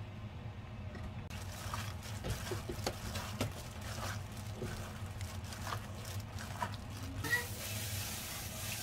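Gloved hand mixing red seasoning sauce into shredded cabbage and noodles in a stainless steel bowl: wet squishing and crinkling of the plastic glove, starting about a second in.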